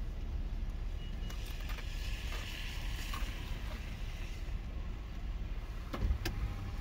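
Steady low rumble of an idling car heard from inside the cabin. About six seconds in come a couple of sharp crunches of ice being chewed.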